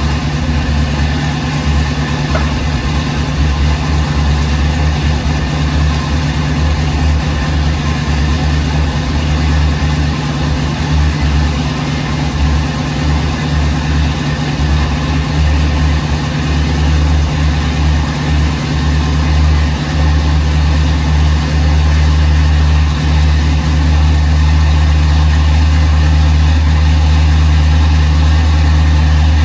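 A 1976 Chevrolet K10's 350 small-block V8 idling, its low running note wavering a little at first and evening out about two-thirds of the way through.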